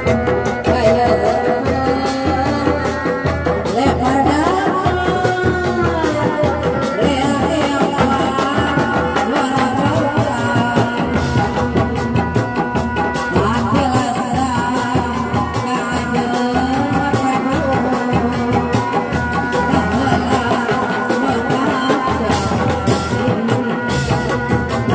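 Reak ensemble of dogdog drums, tapered single-headed drums struck by hand, beating a fast interlocking rhythm together with a large barrel drum. A wavering melody line carries over the drumming.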